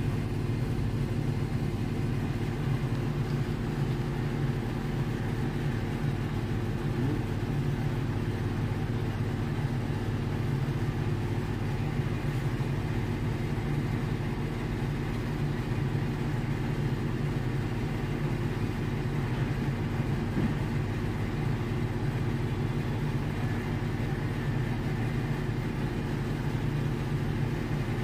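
Steady, low machine hum running evenly throughout, with no breaks or sudden sounds.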